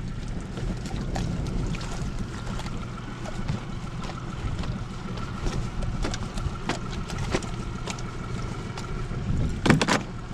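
Small boat adrift on open water: a steady low rumble with wind on the microphone, and scattered knocks and clatter on deck as a freshly caught halibut is handled. A louder knock comes near the end.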